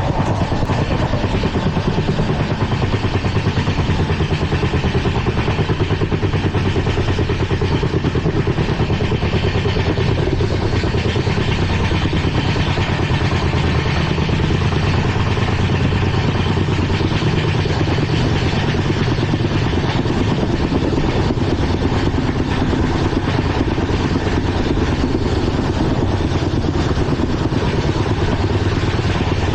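Indian Railways LHB coach running at speed over the track: steady, loud wheel-and-rail noise with a fast, continuous rattle.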